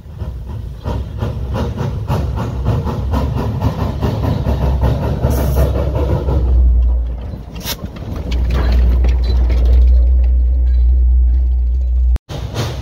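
Small narrow-gauge steam locomotive rolling slowly past close by. A quick run of regular knocks and chuffs sits over a heavy low rumble, with brief hisses of steam.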